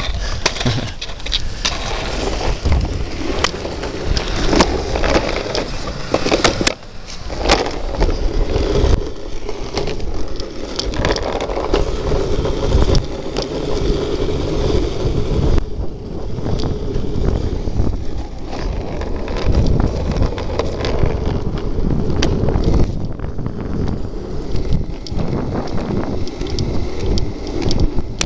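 Street luge's urethane wheels rolling fast over coarse asphalt, a steady rumble with wind buffeting the microphone. Scattered clicks and knocks run through it.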